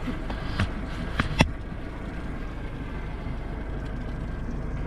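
Yamaha 115 outboard motor idling with a steady low hum. A few sharp knocks sound over it about a second in.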